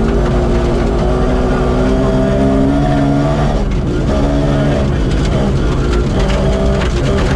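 Rally car's engine heard from inside the cabin at speed on a gravel stage. The revs climb steadily for about three and a half seconds, drop at a gear change, and then hold at a steadier pitch with a few short dips. Road and gravel rumble runs underneath.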